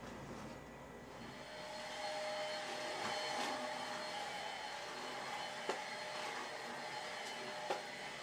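Deerma cordless stick vacuum running steadily, with a high whine over its motor hum, coming in about a second and a half in and sucking up grit along a floor's edge; two sharp ticks near the end.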